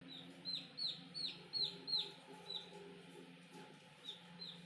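Baby chick peeping: a quick series of high, shrill peeps, each falling in pitch, about three a second, pausing for over a second midway and starting again near the end.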